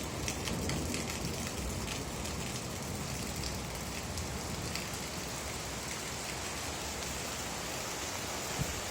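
Steady rain falling, an even hiss with scattered sharper drop ticks, most of them in the first couple of seconds. There is one small knock near the end.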